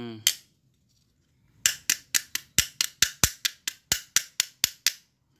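A quick run of about fifteen sharp metal taps over some three seconds, starting about a second and a half in. An electric fan motor's metal end bell is being struck to seat and lock a new sleeve bearing (bushing) and its retainer cap.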